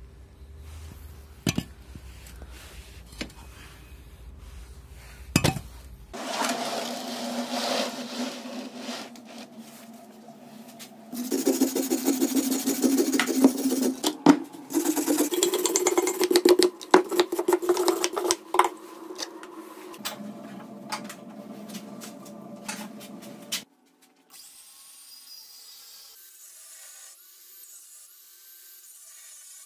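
A few sharp metal clicks and clunks as old car shock absorbers are handled. Then an angle grinder works the rusty steel body of a shock absorber in loud, rough spells lasting several seconds, growing quieter near the end.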